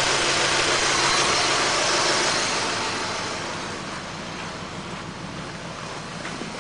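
Audi A4 B6 engine running with a misfire. It is loud at first with a lot of hiss, then dies down about halfway through to a quieter, steady idle.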